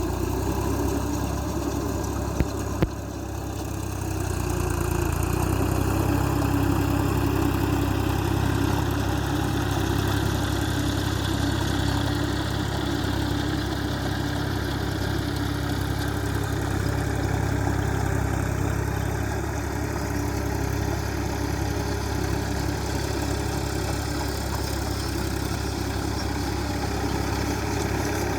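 Tractor engine running steadily while pulling a plough, a deep, even engine note. Two sharp clicks come about two and a half seconds in, and the engine gets a little louder a couple of seconds later, then holds steady.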